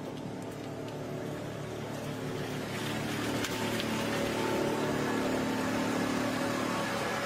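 Heavy-haul truck with a multi-axle low-loader trailer rolling slowly past: a steady engine drone with tyre noise on asphalt, growing louder from about three seconds in.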